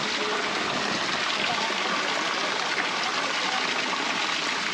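Steady rush of flowing water from a hot spring's stream, with faint voices in the background.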